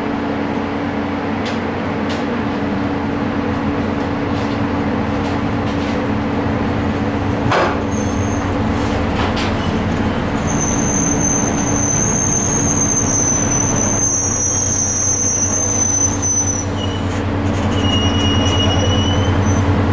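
Train moving through a station over a steady low hum, its steel wheels squealing on the rails in high, steady tones for several seconds at a time, with a sharp click before the squealing starts.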